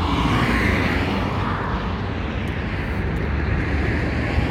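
Steady rushing noise of passing motor vehicles, swelling about a second in and again near the end, over a low rumble.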